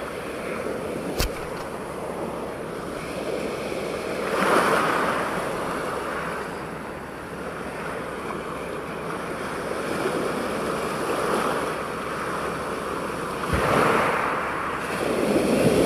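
Shallow ocean surf washing in around the angler, a steady rushing wash that swells louder as waves come in at about four seconds and again near the end. A single sharp click comes about a second in.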